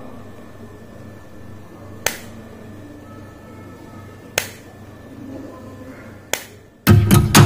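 OnePlus Buds charging case's hinged lid snapping open and shut: three sharp clicks about two seconds apart over a faint hum. Loud guitar music starts near the end.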